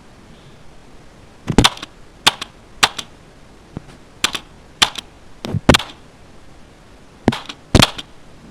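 Old membrane computer keyboard being slapped with a hand: about ten sharp, loud slaps at uneven intervals, some in quick pairs.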